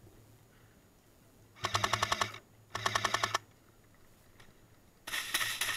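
Airsoft light machine gun firing three short bursts on full auto, a fast, even clatter of shots; the third burst comes about five seconds in.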